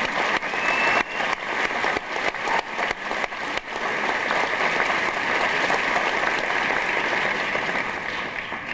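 Large theatre audience applauding, a dense, steady clatter of many hands clapping that dies away near the end.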